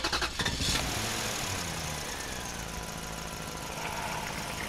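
A steady low engine-like hum, like an engine idling, with a few light clicks in the first second.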